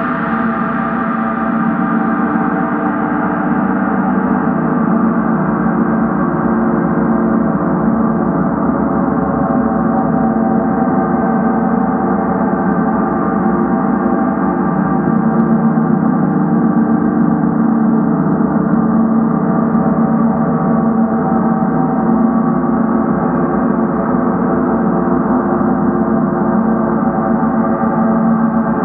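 Several large hanging gongs played together as a sound bath: a dense, unbroken wash of many overlapping sustained tones, swelling over the first few seconds and then holding steady, with no single strike standing out.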